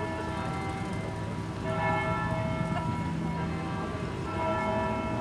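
A large bell tolling slowly, struck twice about two and a half seconds apart, each stroke ringing on with several clear tones.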